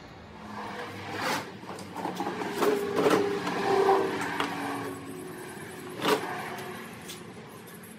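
A hard plastic tool case for a cooling-system vacuum-fill kit being handled on a car: it is set down and scraped across, and its lid is opened. There are knocks, clatter and scraping, busiest in the middle, with a sharp knock about six seconds in.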